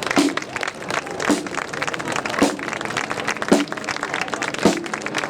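Marching flute band's drums beating a slow, steady march: a bass drum struck about once a second over rapid, crackling snare drum taps.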